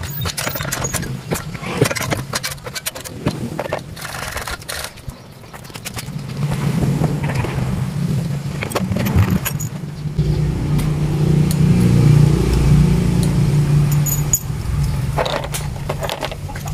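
Sharp metallic clicks and rattles of parts and tools being handled, then a small generator engine running with a steady low hum from about halfway, growing louder near the end.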